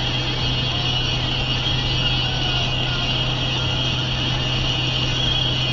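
Steady road and engine noise of a car cruising at highway speed, heard from inside the cabin, with a constant low hum underneath.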